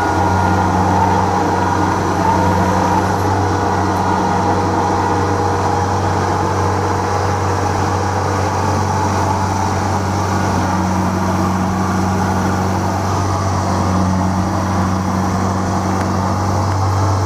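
Kubota DC-70 Plus combine harvester running at a steady working pitch as it crawls on its tracks through the rice, harvesting. The engine hum is loud and even, with no revving.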